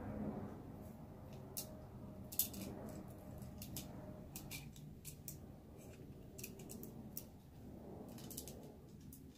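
Scattered sharp clicks and small rattles from handling a cordless chainsaw and its loose parts by hand, with one louder click about two and a half seconds in.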